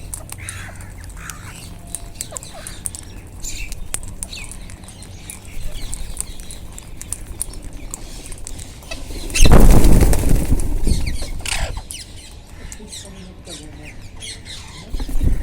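A flock of Indian ringneck parakeets squawking in short, scattered calls. About nine and a half seconds in comes a loud rush of flapping wings lasting a second or two, followed by a few more falling squawks.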